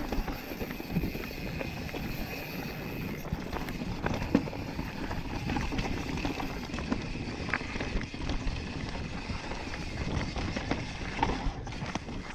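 Yeti SB5 full-suspension mountain bike riding fast down rocky dirt singletrack: a steady rumble of Maxxis knobby tyres over dirt and stones, with frequent small knocks and rattles from the bike as it hits rocks.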